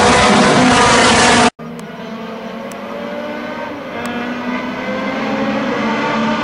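Race car engines running loud and close with heavy rushing noise, then, after an abrupt cut about a second and a half in, a pack of race cars accelerating toward the listener, their engines rising and falling in pitch and growing steadily louder as they approach.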